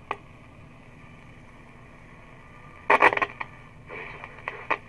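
Westinghouse WR-258 tube radio's speaker hissing and crackling as its tuning knob is turned. There is a single click at the start, a loud burst of crackles about three seconds in, then shorter bursts of static.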